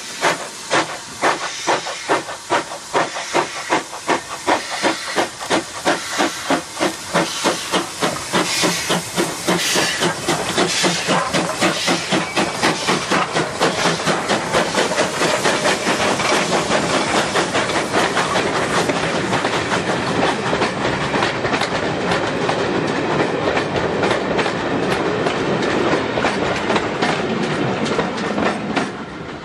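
LMS Ivatt Class 2MT 2-6-2 tank steam locomotive pulling away with a train, its exhaust beats quickening steadily under a hiss of steam. Once the engine has passed, the coaches rumble by with clickety-clack over the rail joints, and the sound drops away near the end.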